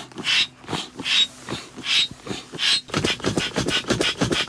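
Hand-pressed bellows air pump inflating an air mattress: a rhythmic whoosh of air with each push, about every 0.7 s, then faster, quicker strokes for the last second and a half.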